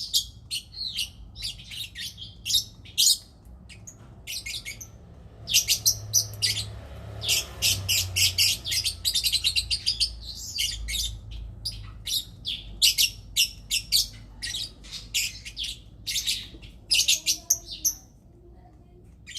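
Lovebirds chattering in rapid, high-pitched chirps, in runs of several seconds broken by short pauses: the calls of lovebirds mating.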